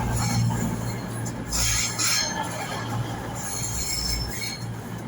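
Passenger train moving slowly along the platform with a steady low rumble and a high-pitched squeal from its wheels and brakes, which comes twice, about 1.5 s and 3.5 s in.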